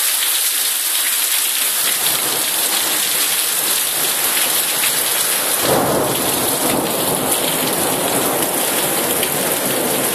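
Heavy rain hissing steadily, with thunder rumbling underneath that swells suddenly about six seconds in and rolls on.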